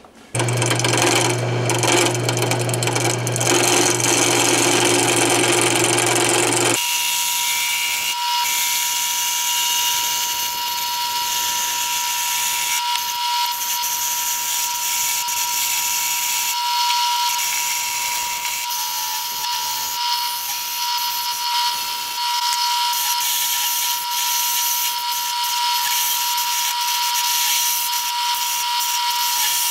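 Wood lathe running while a gouge cuts into a spinning glued-up wooden blank, with the steady hiss and scrape of the cut. About seven seconds in, the sound changes from a low hum to a steady high whine under the cutting noise.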